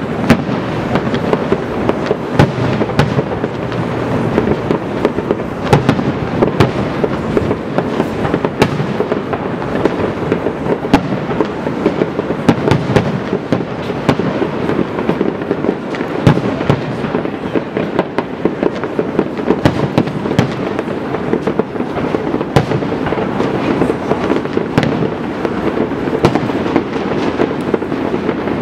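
Aerial firework shells bursting in a continuous barrage, many bangs in quick succession over a steady rumble and crackle.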